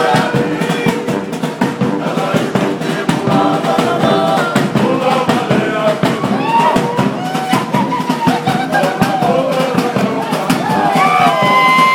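Fijian military band playing live in the street: fast, steady drumming with a group of voices singing over it, and crowd chatter underneath.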